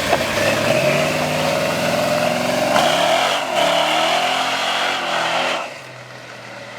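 1973 shortwide pickup truck doing a burnout: the engine revs hard with the rear tires squealing. The engine note climbs, dips a little under halfway through, climbs again, then drops off sharply about a second before the end.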